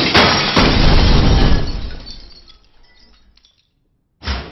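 Glass shattering in several loud crashes as fluorescent light tubes burst, dying away to silence about three and a half seconds in. Near the end, a sudden loud hit.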